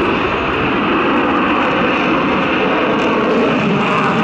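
Jet noise of an F-22 Raptor's twin Pratt & Whitney F119 turbofans as the fighter climbs steeply away, a loud, steady rushing sound with no breaks.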